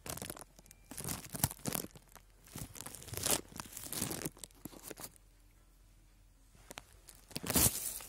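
Handling noise from a handheld recording device: irregular rustling and scraping bursts, a quiet stretch around five to seven seconds, and a louder burst near the end.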